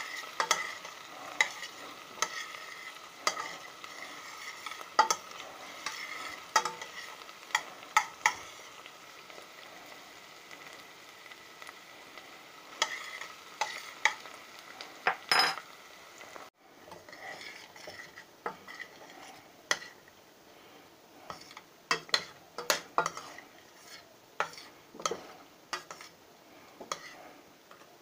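Diced onions sizzling in a stainless steel pot as they are stirred, with irregular clicks and knocks of the stirring utensil against the pot. The sizzle drops away about halfway through, where a pot of chopped vegetables is stirred with more clinks.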